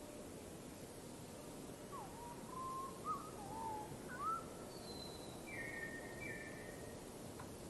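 Wild songbird singing faintly over a steady hiss: a few short whistled notes that slide up and down about two seconds in, then a pair of higher, harsher notes about five and a half seconds in.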